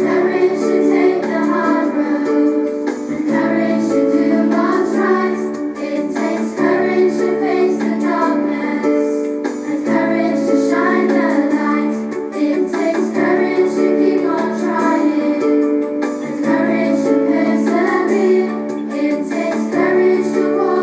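A song: a singing voice over sustained keyboard chords.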